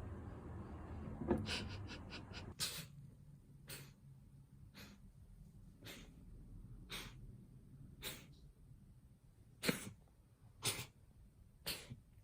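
Domestic cat coughing in a run of short hacks, about one a second, some ten in all. This kind of repeated hard cough is typical of feline asthma.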